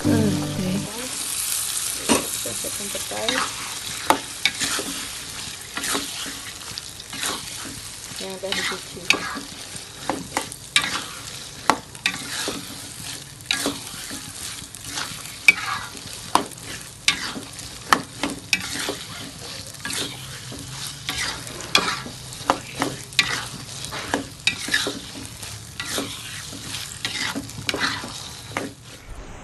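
Sambal paste and petai beans frying in a wok with a steady sizzle, while a spatula is stirred through them, scraping and knocking against the pan again and again.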